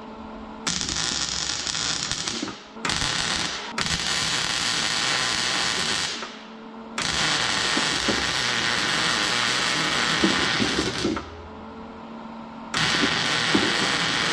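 MIG welder arcing as a nut is welded onto a broken exhaust bolt in an aluminum cylinder head. It runs in three welds of a few seconds each, the first twice briefly interrupted, with short pauses between.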